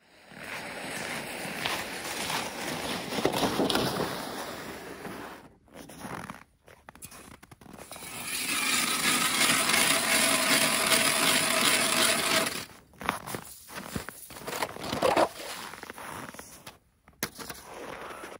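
Hand ice auger drilling through lake ice: a grinding scrape, strongest and steady for about four seconds in the middle, with shorter bouts of scraping before and after.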